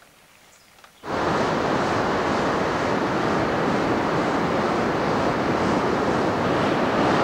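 Rough surf breaking on a sandy beach, with strong wind buffeting the microphone: a dense, steady rush of noise that starts abruptly about a second in.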